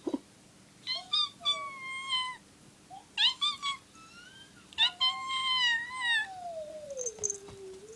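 Cat giving a series of high, yelping cries of protest. Several short calls come first, then one long call that slides steadily down in pitch near the end.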